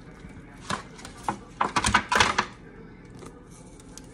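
Clicking and rattling of a plastic spice jar being handled and shaken over a raw chicken: a few light clicks, then a quick run of rattles about two seconds in.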